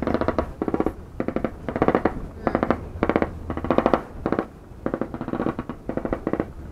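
Machine-gun fire in many short bursts, one after another, each burst a rapid run of shots.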